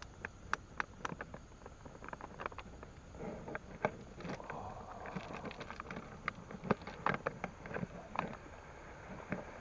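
Hands handling plastic packaging and small plastic containers over a cooler box: scattered clicks, taps and rustling.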